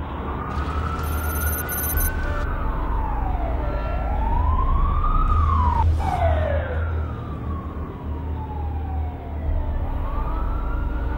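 Siren wailing, its pitch sliding slowly up and down over several seconds per sweep, with a second wail overlapping near the middle. A steady low rumble runs underneath, and a brief click comes about halfway through.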